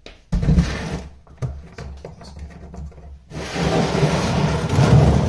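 A drain pan dragged and scraped across the garage floor to sit under the car, in two long rough scraping stretches: one shortly after the start and a longer one near the end.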